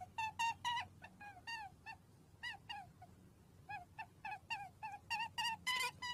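A bird calling over and over in short chirps that drop in pitch, about three or four a second, with a short lull near the middle, over a faint steady hum.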